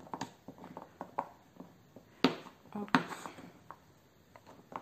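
Serrated knife chopping a block of melt-and-pour soap base into small chunks on a plastic cutting board: a few sharp, irregularly spaced knocks as the blade cuts through and strikes the board.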